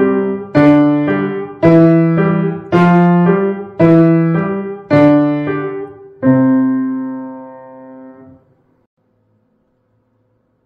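Upright piano played with both hands: two-note slurred groups, the first note of each struck deep and the second lighter, about two notes a second. It ends on a long held note that rings out and fades away, leaving quiet for the last couple of seconds.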